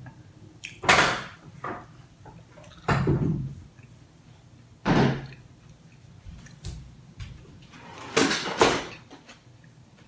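Kitchen drawer being pulled open and its contents knocked about: a string of about five loud bangs and clatters, spaced a second or more apart.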